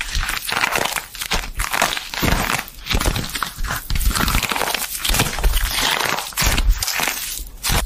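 Slime being squeezed and kneaded by hand, making an irregular run of crackly, squishy noises.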